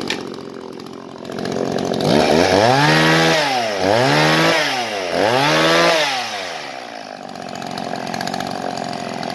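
Shindaiwa 300S two-stroke chainsaw idling, then revved three times in quick succession, the pitch rising and dropping with each blip of the throttle, before settling back to idle.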